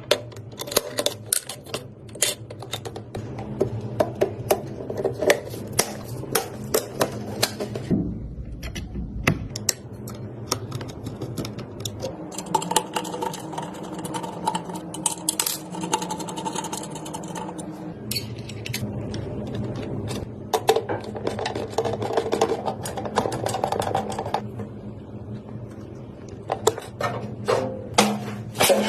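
A run of sharp clicks, taps and clatter as computer parts are handled and snapped or screwed into place, over a steady low hum.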